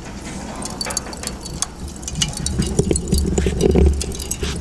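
Lit charcoal fire in a kettle grill crackling and popping with many irregular sharp snaps as the lid is lifted and smoke pours out, over a steady low rumble.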